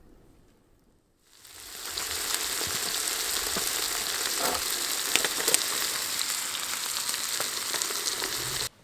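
Steaks sizzling in a frying pan on a camping stove: a steady hiss with scattered crackles. It swells in over the first couple of seconds and cuts off abruptly near the end.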